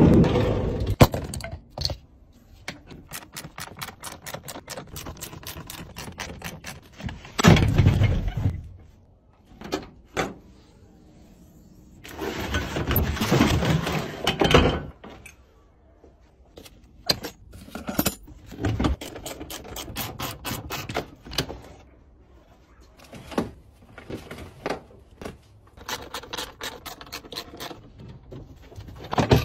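Hands and tools working on a vehicle's parts: a run of irregular clicks, knocks and clatter. There are two longer, louder noisy stretches, one about seven seconds in and one from about twelve to fourteen seconds.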